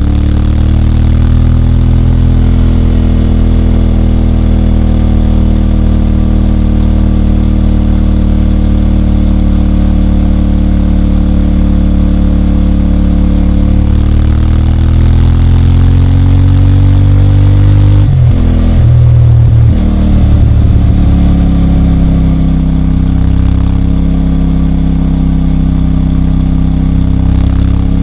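CFMOTO 450MT motorcycle's parallel-twin engine running steadily. Its pitch climbs slowly about halfway through, breaks off briefly about two-thirds of the way in, then settles lower and steady.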